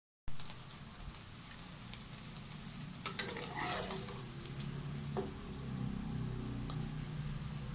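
Shrimp fritters sizzling and crackling in hot oil in a wok, after a brief dropout at the very start. About three seconds in, a spatula scrapes and clicks against the pan as the fritters are lifted out of the oil.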